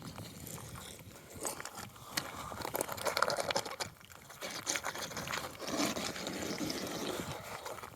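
Irregular crunching and rustling of footsteps and clothing on a rocky mountain path.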